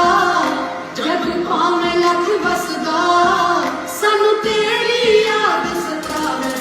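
A Punjabi song: a voice singing with sliding, ornamented notes over instrumental backing.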